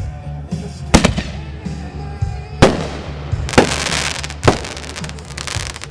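Triple break artillery shell firework going off: four sharp bangs over about three and a half seconds, the last two followed by dense crackling. Background music plays underneath.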